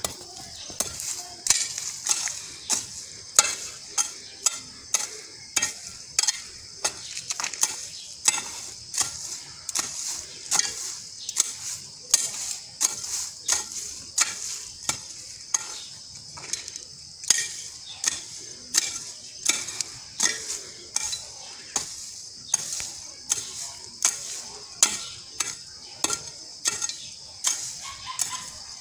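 A short-handled hand hoe chopping into soil and weeds in a steady rhythm, about one and a half strikes a second, each with a scrape of earth. This is ground being broken up for a vegetable bed. A steady high hiss runs underneath.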